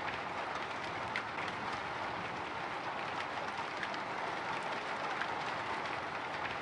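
Light drizzle on a window: a steady hiss of fine rain with scattered soft drop ticks.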